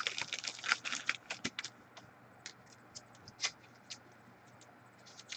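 Trading cards being handled and flipped through: a quick run of light clicks and rustles for about the first second, then scattered soft clicks.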